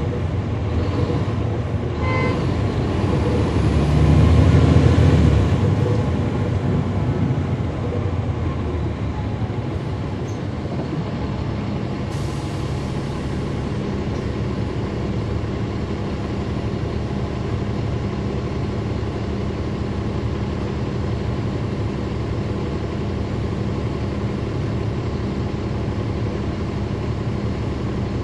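Caterpillar C13 diesel engine of a 2009 NABI 416.15 transit bus heard from inside the bus, running with its engine cooling fans on. It swells louder about four seconds in, there is a brief hiss near the middle, and then it settles into a steady drone.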